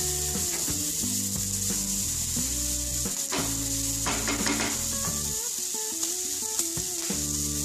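Chopped onion, capsicum and tomato sizzling in hot oil in a non-stick frying pan while a wooden spatula stirs and scrapes them. The stirring stops before the end as the sizzle carries on under background music.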